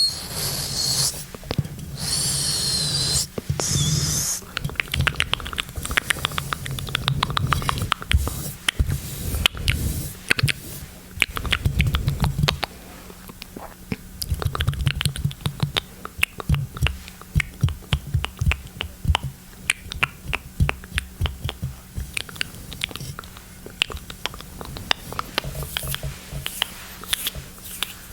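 Close-miked ASMR mouth sounds: a long, irregular run of quick wet clicks and smacks. The first few seconds are a hissing sound broken by short gaps.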